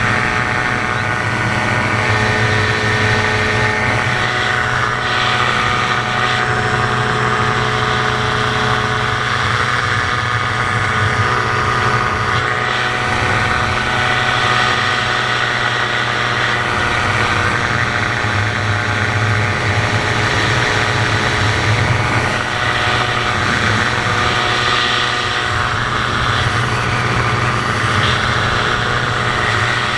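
Dominator gyroplane in flight: its engine and pusher propeller running with a steady drone, mixed with wind noise.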